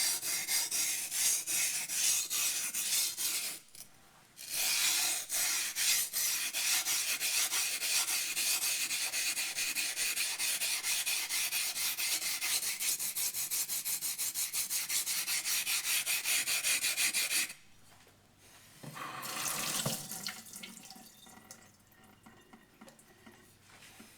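Yanagi knife's bevel ground on a wet, fast-cutting waterstone with rapid back-and-forth strokes, a wet rasping scrape, as the bevel is worked up to the shinogi line. The strokes pause briefly about four seconds in and stop about three-quarters of the way through, followed by a shorter, softer scrape.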